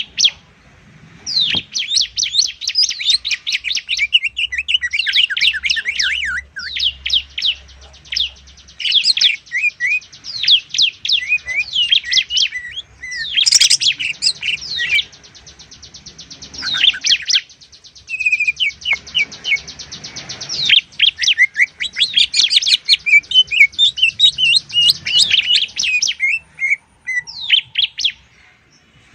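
Greater green leafbird (cucak ijo) and bar-winged prinia (ciblek) songs mixed together as a bird-tutoring recording: loud, fast runs of high chirps with few pauses. A long, very rapid buzzing trill runs through the middle, the ciblek's 'ngebren' rattle.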